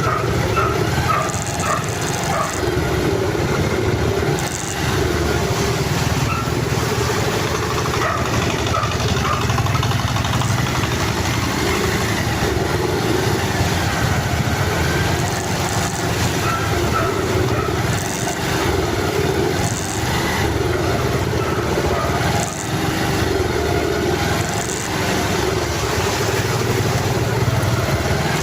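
A vehicle engine running steadily, with a constant rushing noise over it.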